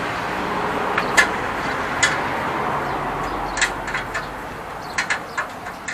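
Scattered light clicks and knocks of metal being handled over a steady hiss, as an industrial sewing machine table is adjusted.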